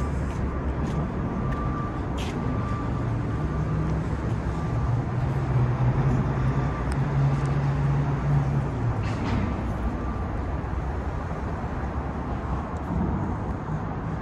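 Steady rumble of street traffic, with a few faint clicks.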